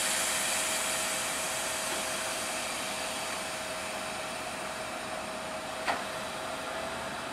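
Loud hiss of compressed air venting from a DM62 diesel locomotive, fading slowly, typical of the air brakes being released as the train pulls away. A thin steady tone runs beneath it, and a single sharp click comes about six seconds in.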